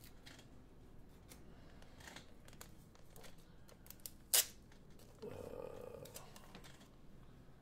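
Faint rustling and crinkling of a plastic comic book bag and board being handled and opened, with one sharp crackle about four seconds in and a short louder rustle a second later.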